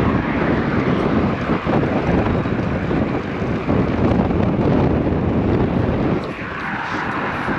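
Wind buffeting the microphone of a camera on a moving road bike: a loud, steady rushing rumble that eases slightly about six seconds in.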